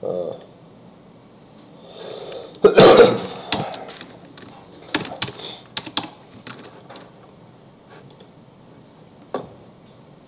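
Scattered computer keyboard and mouse clicks. One loud burst of noise, about a second long, comes about three seconds in and is the loudest sound.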